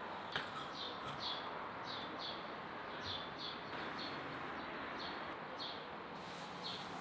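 A small bird chirping over and over, short high chirps coming irregularly about twice a second, over a steady background hiss. A single sharp click comes about half a second in.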